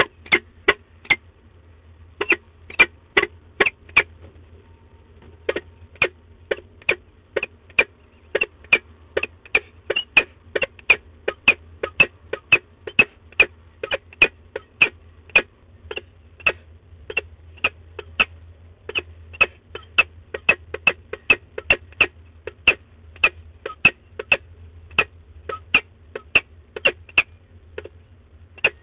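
Peregrine falcon calling at the nest box: short, sharp calls repeated about twice a second, with two brief pauses in the first few seconds.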